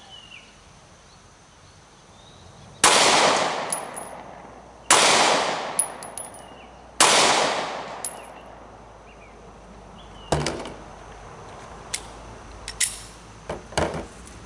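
Three 9mm shots from a Glock 43 pistol, about two seconds apart, each ringing out into a fading echo with a light metallic ting just after: a slow Mozambique drill, two to the chest and one to the head. Then a softer knock and a few light clicks as the pistol is lowered onto the barrel.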